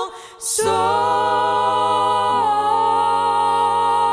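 Gospel vocal group singing a cappella: after a short breath, the voices hold a long sustained chord over a deep bass note, moving to a new chord about two and a half seconds in.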